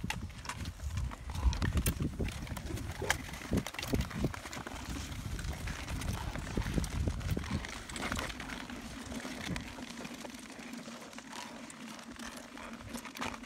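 Several skaters on long touring skates striding on clear lake ice: blades scraping and clacking on the ice, with ski-pole tips knocking and clicking on it, in an uneven rhythm.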